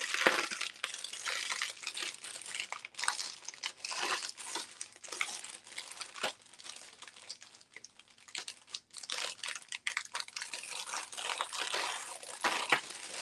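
Crinkling and rustling of packaging, irregular crackles and rustles throughout, as a costume-jewelry necklace is unwrapped and handled.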